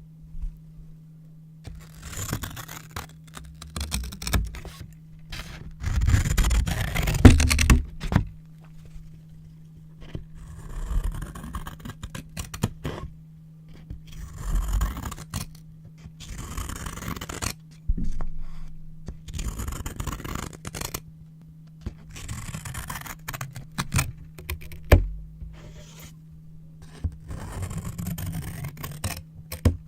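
Scissors cutting brown paper and the paper being handled and scraped, in a series of separate strokes a second or two long with short pauses between them, loudest about six to eight seconds in. A steady low hum runs underneath.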